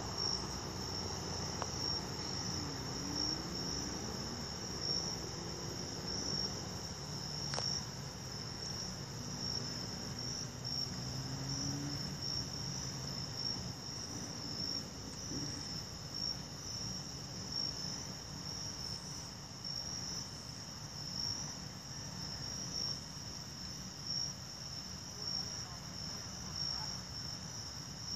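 Night chorus of crickets: a steady, high, pulsing trill, with a faint low rumble beneath and one sharp click about seven and a half seconds in.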